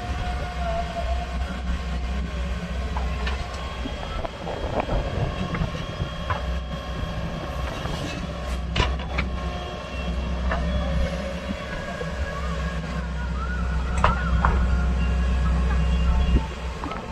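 JCB backhoe loader at work: its diesel engine running steadily under load, with a few sharp metallic clanks and short squeaks from the arm and bucket.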